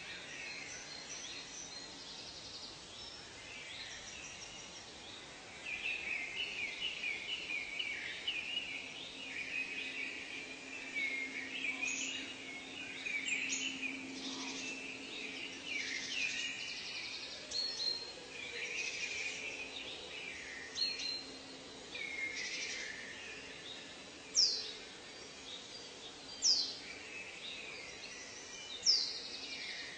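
Several birds calling over a steady background hiss: a quick run of chirps starts about six seconds in and goes on through the middle, and near the end three loud whistles each sweep sharply downward in pitch.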